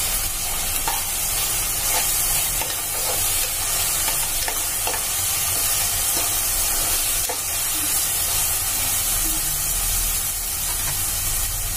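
Chopped onion and tomato frying in oil in a pressure cooker, a steady sizzle, while a steel spoon stirs them with faint scrapes and clinks against the pot.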